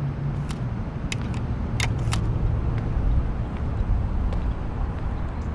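Car engine idling, heard from inside the cabin as a steady low rumble, with a few light plastic clicks in the first two seconds as a cassette tape is handled and loaded into the dashboard tape deck.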